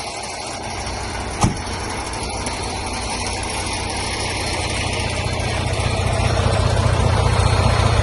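A diesel truck engine idling with a steady low pulsing rumble that grows louder in the last few seconds. A single sharp click sounds about a second and a half in.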